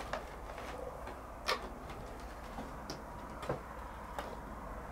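A few sparse, uneven footsteps with light cracks and crunches of old wood and dry debris underfoot.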